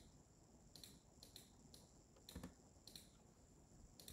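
Faint computer keyboard and mouse clicks, about half a dozen irregular taps spread over the few seconds, as files are renamed.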